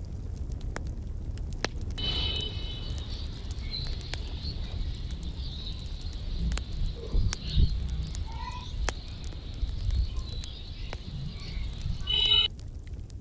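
Outdoor ambience: wind rumbling on the microphone, with a high, steady chirping that starts about two seconds in and stops suddenly near the end, and scattered light ticks.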